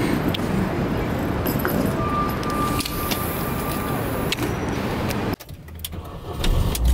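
City street noise with passing traffic and a steady tone for about two seconds in the middle. It drops away about five seconds in, and near the end a small car's engine starts with a rising low rumble.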